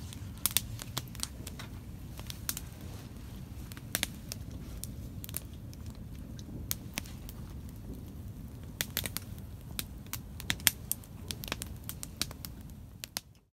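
Wood campfire crackling: irregular sharp pops over a steady low rumble, cutting off suddenly near the end.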